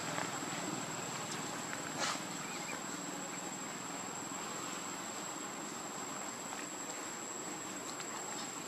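Insects chirring steadily in a continuous high-pitched drone, with one short sharp sound about two seconds in.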